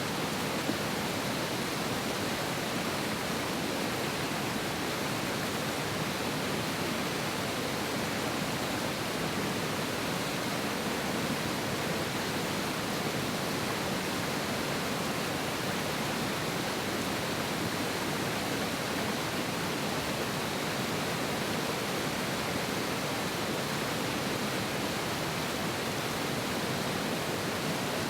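Mountain river rushing hard over rocks: a steady, unbroken roar of water.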